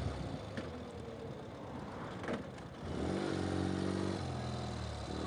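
Ural sidecar motorcycle's flat-twin engine taking a hairpin bend. It runs quietly under a hiss of noise for the first few seconds, then pulls harder from about three seconds in, its pitch rising, and drops in pitch at a gear change a little over a second later.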